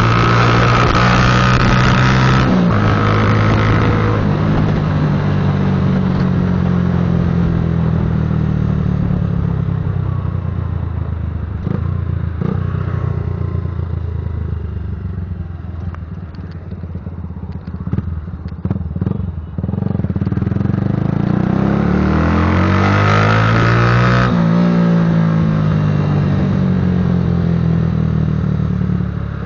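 Patagonia Eagle motorcycle engine growling through its exhaust on a ride. It starts at high revs and drops at a gear change about two and a half seconds in, then winds down to a low, quieter run with a few clicks. It revs up hard again for a few seconds and drops at another gear change near the end.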